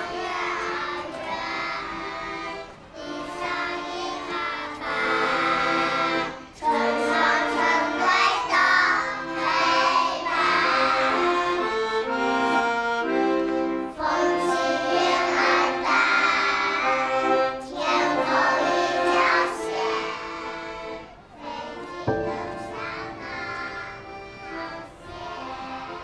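A group of young children singing a song in unison to an accordion accompaniment. It swells in the middle and grows softer in the last few seconds.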